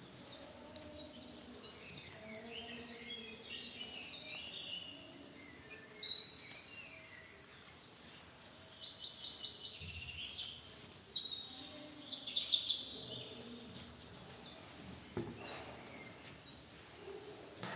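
Birds chirping and singing, with quick falling high-pitched calls loudest about a third and two-thirds of the way through. A few faint knocks come in between.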